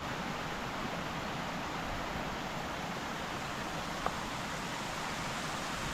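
Steady rushing of a hillside stream, an even hiss with one faint tick about four seconds in.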